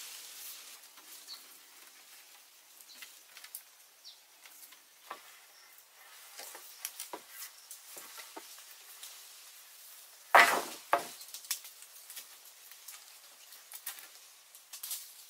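Scattered light knocks, creaks and crackles from the wooden poles and vine lashings of a pole-frame treehouse as a man climbs and shifts his weight on it, with a louder double knock about ten seconds in.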